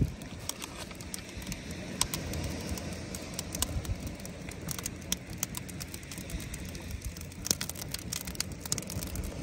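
Wood fire crackling in a metal brazier, with scattered sharp pops and a few more close together near the end, over a low steady rumble.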